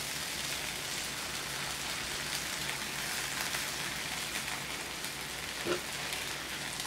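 Corn tortillas frying on a cast iron griddle: a steady sizzle.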